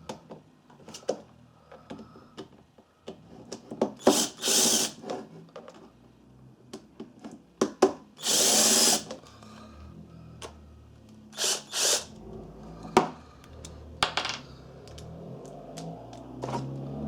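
A power screwdriver running in short bursts, several times, to take out the screws of a clothes iron's plastic housing. Between bursts there are clicks and knocks of the plastic casing being handled and pried apart.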